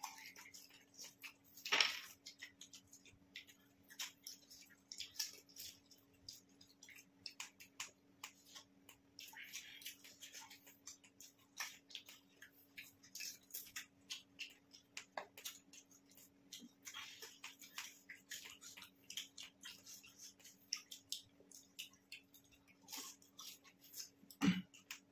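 Two people eating pani puri fast: crisp puri shells crunching as they are bitten and chewed, with wet mouth sounds from the spicy water, in a quick irregular run of small crunches. A louder crunch comes about two seconds in and another near the end, over a faint steady hum.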